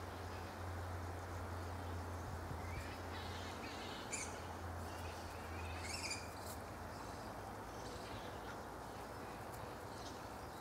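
Outdoor background: a steady hiss with a low hum that fades out about six seconds in, and a few short, high bird chirps between about three and seven seconds in.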